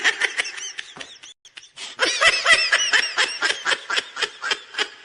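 High-pitched laughter sound effect in quick repeated bursts, breaking off briefly about a second and a half in, then a longer run of laughs that fades toward the end.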